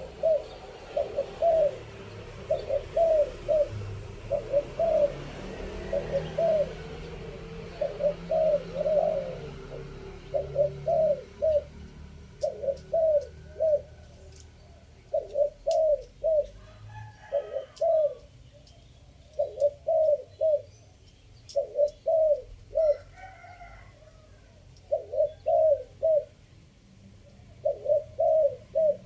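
Spotted dove cooing in repeated three-note phrases, about one phrase every one to two seconds: the 'three-kook' call prized by Thai dove keepers.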